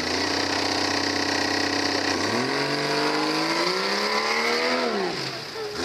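Tough truck's engine running hard at steady revs, dropping back about two seconds in, then climbing in pitch for a couple of seconds before falling off near the end.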